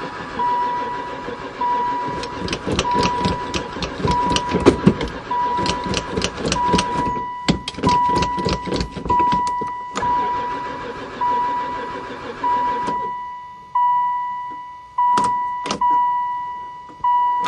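Starter motor cranking a long-parked van's engine, turning it over steadily without it catching, while a dashboard warning chime dings about once a second. The cranking stops about 13 seconds in, followed by two sharp clicks.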